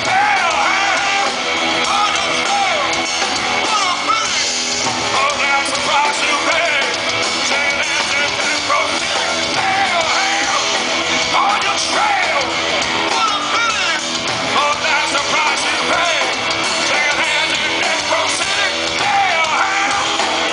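Hard rock band playing live at full volume, with distorted electric guitars, bass and drums and a male voice singing and shouting over them.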